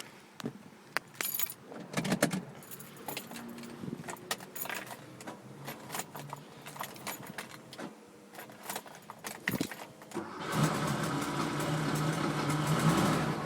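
Scattered clicks and rattles of handling for about ten seconds, then the 1976 Porsche 911's 2.7-litre air-cooled flat-six heard plainly and steadily from about ten seconds in, idling with its fuel mixture just leaned to lift the idle toward 1,000 RPM.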